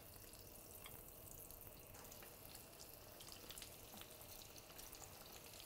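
Faint sizzling and small crackles of hot peanut oil as breaded zucchini meatballs are lowered into it in a wire frying basket; very quiet overall.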